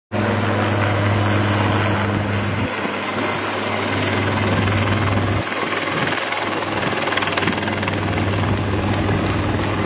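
Helicopter flying overhead: a steady noise of rotor and engine, with a low hum under it that drops out about halfway through.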